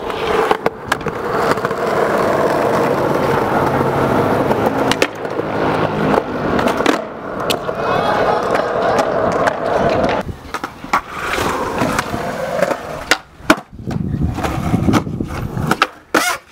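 Skateboard wheels rolling on smooth concrete, broken by sharp clacks of the tail popping and the board landing, with trucks grinding and sliding along concrete ledges. The audio cuts abruptly between short clips.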